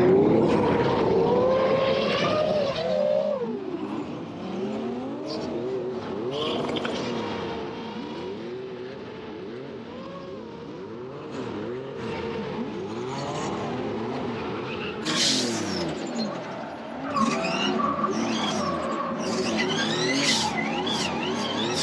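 Car engine revving up and down again and again while the car drifts, with tyres squealing and skidding. It is loudest at the start, fades somewhat in the middle, then comes closer again with a few sharp cracks in the second half.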